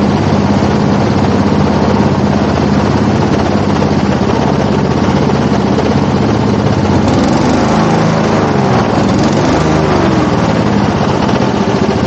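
Airboat's engine and air propeller running steadily, with the pitch gliding down and back up between about seven and ten seconds in.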